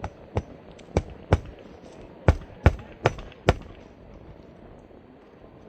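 Roofing nails being driven into an asphalt shingle: eight sharp strikes in quick pairs, then they stop.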